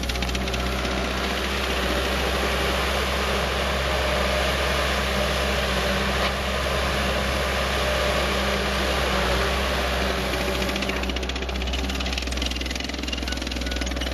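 ASV SR-80 Posi-Track compact track loader's turbocharged diesel engine running steadily at close range, with a constant low drone.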